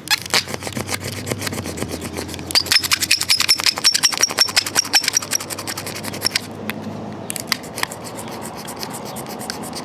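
A scraper being drawn quickly back and forth over windshield glass, shaving off excess cured repair resin in rapid repeated strokes, with a high thin squeal through the middle. The strokes thin out later.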